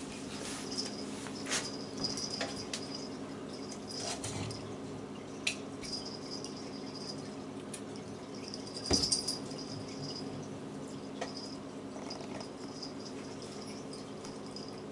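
A green weighted wobble cat toy rocking and knocking on a tile floor as cats bat it, with a light on-and-off jingling rattle, a few sharp clicks and a louder clatter about nine seconds in. A steady low hum runs underneath.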